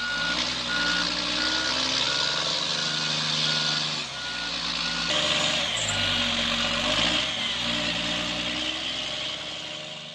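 Truck engine labouring and revving, its note rising and falling, with a reversing alarm beeping about twice a second until about six seconds in; the engine sound cuts off at the end.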